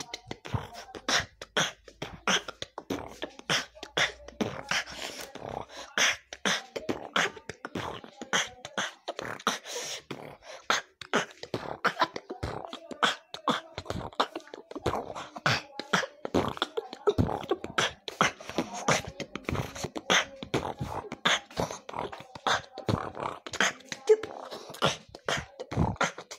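Fast rhythmic percussive hits and clicks, several a second, with a faint held tone beneath.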